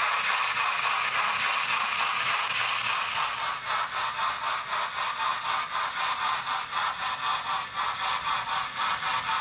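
Steam locomotive sound for a model Princess Coronation Pacific: a steady hiss that turns, about three seconds in, into a quick, even beat of exhaust chuffs.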